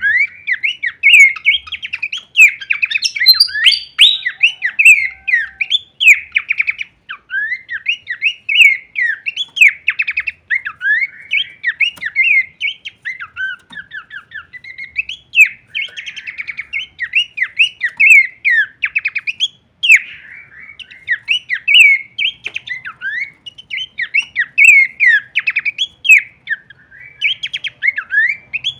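Pelanduk semak babbler singing non-stop: a rapid, varied stream of chirps and short whistled slurs with hardly a break.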